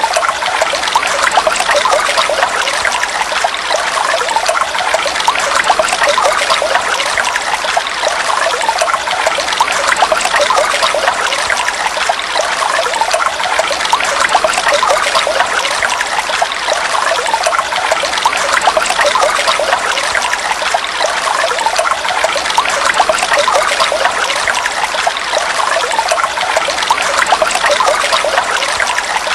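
Steady heavy rain, a dense, even patter of water drops.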